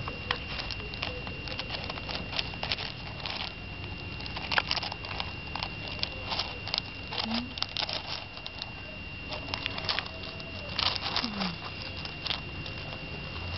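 Loose gravel stones clicking and shifting as a young tamandua roots through them with its snout and claws, in quick irregular bursts. A steady faint high tone runs underneath.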